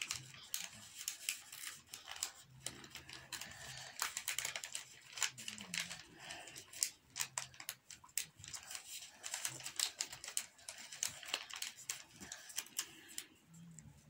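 A sheet of origami paper rustling and crinkling as it is folded and creased by hand, in many small crackles and taps.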